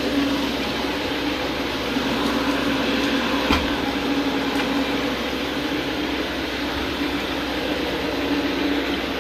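Counter-rotating brush (CRB) carpet agitation machine running steadily over the carpet: a constant motor hum under an even brushing hiss.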